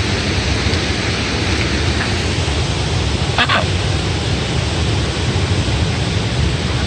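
Loud, steady rush of running floodwater, an even hiss with no rhythm, and one short, sharper sound about halfway through.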